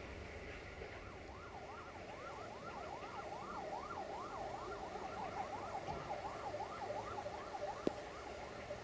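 Emergency vehicle siren on a fast yelp, its pitch sweeping up and down about three times a second, starting about a second in and dying away near the end, over a low steady rumble. A single sharp click near the end.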